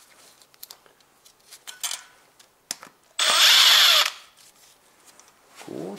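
Cordless power driver running briefly, about three seconds in, for just under a second with a steady high whine, loosening a camshaft bearing cap bolt a little at a time; faint clicks and knocks of the tool and parts come before and after.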